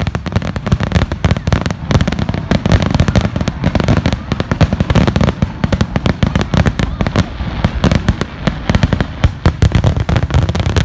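Aerial fireworks shells bursting in a rapid barrage, many loud bangs a second running into one another.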